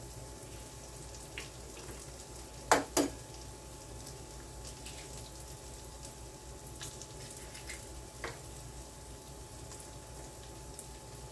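Two sharp taps, a fraction of a second apart about three seconds in, of an egg being cracked on the rim of a bowl, with a few fainter clicks of eggshell later on. Under them, sausage and vegetables sizzle faintly and steadily in a cast-iron skillet.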